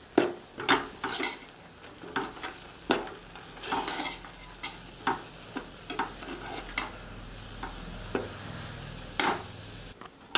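Steel spoon stirring a thick, crumbly flour-and-water mixture in a stainless-steel pot, scraping and knocking against the pot's sides and bottom in irregular strikes.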